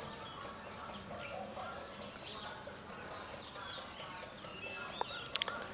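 Birds chirping and calling in the background, many short calls overlapping, with one sharp click about five seconds in.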